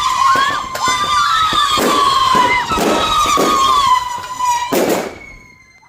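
Fireworks going off: several shrill whistles held at once and drifting slowly down in pitch, with short rising-and-falling whistles and repeated sharp cracks over them. A last big bang comes about five seconds in, then the sound dies away.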